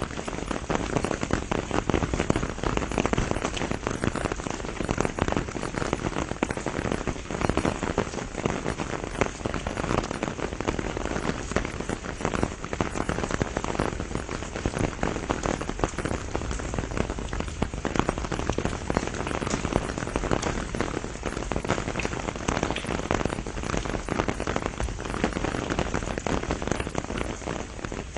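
Steady rain shower, a dense, even spray of drop hits with no let-up.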